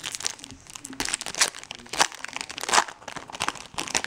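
Foil wrapper of a 2012 Bowman Draft Picks and Prospects trading-card pack being torn open and crumpled by hand: a run of irregular crinkles and crackles, the loudest about two seconds in and again a little later.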